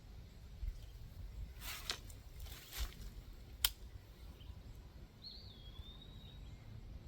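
Two brief rustles and then one sharp click as the air rifle is handled and readied between shots. Near the end a bird gives one short wavering call, over a low outdoor rumble.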